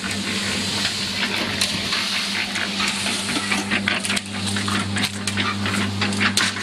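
Concrete mixer running with a steady low hum, its drum tumbling a gritty slag-and-ash cinder-block mix with a constant patter of small clicks and rattles.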